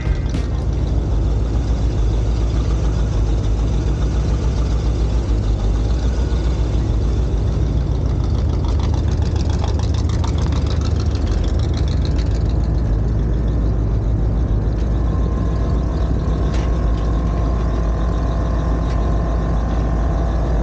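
Supercharged engine of a rusty Chevrolet 3100 pickup rat rod, rumbling steadily at idle and low speed as it pulls away.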